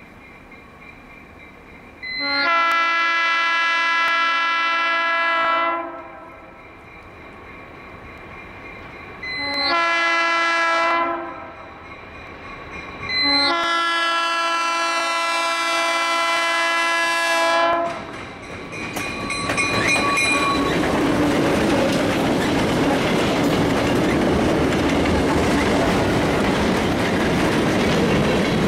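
Diesel locomotive air horn sounding three blasts, long, short, long, each a chord of several notes. The train then rolls past close by with a steady rolling noise of wheels on rail.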